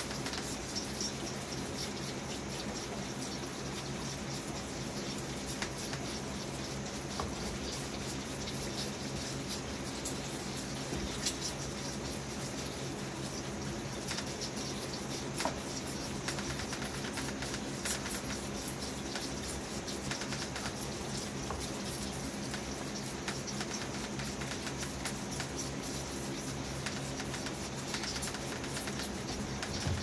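Whitetail fawns suckling from a row of bottles on a feeding rack: a steady run of small sucking and smacking clicks, over a faint steady low hum.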